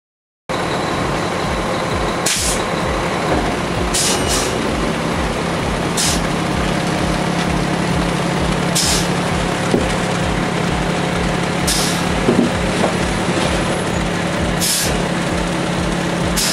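Heavy truck engine running steadily on a concrete pour, with a low pulsing rumble and a short hiss every two to three seconds.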